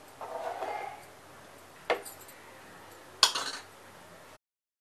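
Steel spoon scraping and clinking against a metal cooking pot of dal as it is served out, with a sharp click near the middle and a louder clink that rings briefly a little after three seconds. The sound cuts off abruptly near the end.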